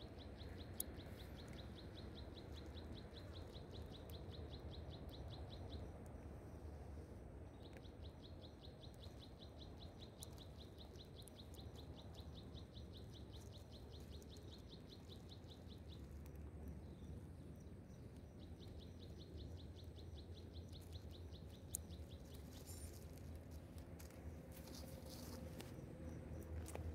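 Faint outdoor ambience: a high, rapid pulsing chirp trill comes and goes in three stretches of several seconds each, over a low rumble.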